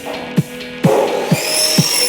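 Background pop music with a steady kick-drum beat, about two beats a second. About a second in, a hissing high whine rises over it.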